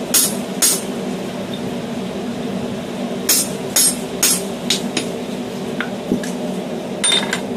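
Hand hammer striking a handheld expanding tool driven into the hot eye of a forged hammer head on the anvil: sharp metal-on-metal blows, two at the start, three more about three seconds in and lighter taps after them. Near the end there is a short metallic clatter, over a steady background hum.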